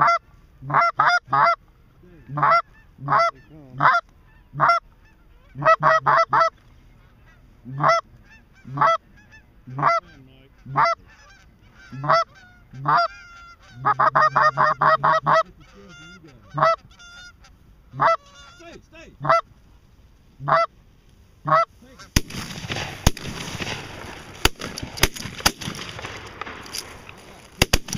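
Goose honks and clucks, short calls coming about once a second, with a quick run of calls around the middle. Near the end the calling stops and a loud rustling noise with sharp clicks takes over.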